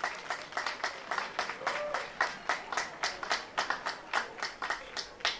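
Audience applauding with many quick, distinct hand claps. The clapping dies away just before the end.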